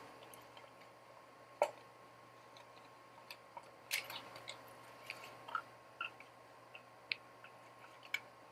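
Spatula scraping thick cheesecake batter out of a blender jar: faint scrapes and light clicks, with one sharper click about one and a half seconds in and a few more around four seconds.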